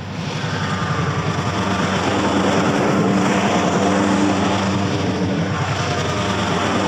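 Ride-on lawn mower engine running steadily, growing louder over the first few seconds as the mower comes closer.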